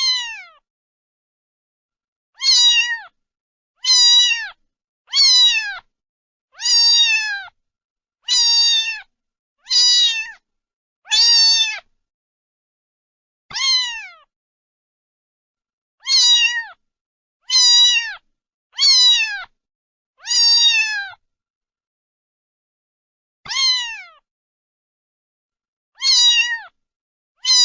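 Domestic cat meowing over and over, about fifteen short meows each falling in pitch at the end, with dead silence between them and a few longer gaps.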